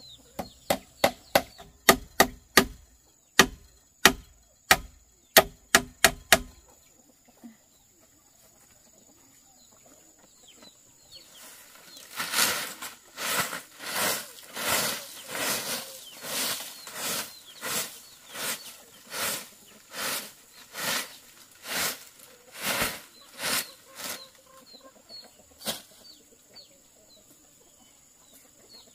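Hammering on wood or bamboo, about a dozen sharp blows at roughly two a second. After a pause comes a long run of even, noisy strokes at about one and a half to two a second, and chickens cluck in the background.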